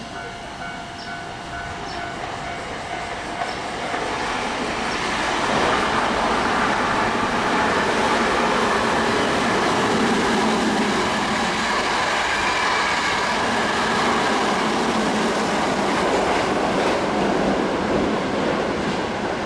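Hankyu electric train running through a station at speed without stopping: the rush of wheels on rail builds over the first few seconds, is loudest while the cars go past, and eases slightly near the end.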